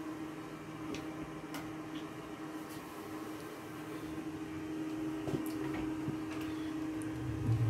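A steady machine hum at one even pitch, with a few faint clicks; a louder low sound comes in just before the end.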